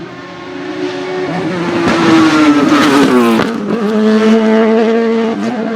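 Race car engine at high revs approaching and passing by on a hillclimb course, getting louder as it nears. Its note drops as it goes past, then holds a steady lower pitch as the car pulls away.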